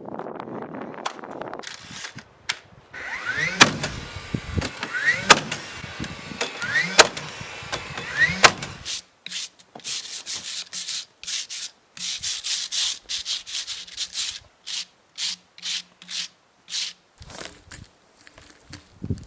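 Hand carpentry on rough-sawn lumber. First come four sharp knocks, each with a brief rising ring. Then a long run of short, quick rasping strokes on wood, two or three a second.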